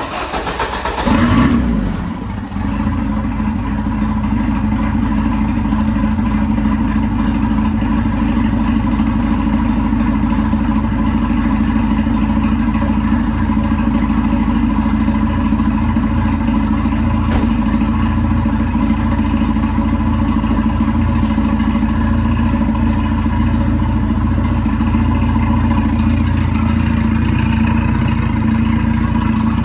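A 1.9-litre Ford CVH turbocharged four-cylinder engine firing up on its first start after a head gasket replacement: it catches, revs briefly about a second in, then settles into a steady idle.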